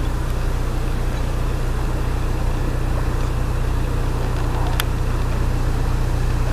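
Narrowboat's diesel engine idling, a steady low hum, with one sharp click about five seconds in.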